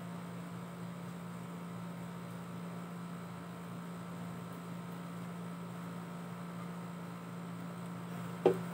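A steady low electrical hum, and near the end one sharp knock as a water bottle is set down on the table.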